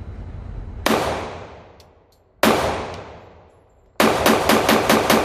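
Gunshots from a .45 ACP firearm: two single shots about a second and a half apart, then a rapid string of about eight shots near the end, each with an echo trailing off behind it.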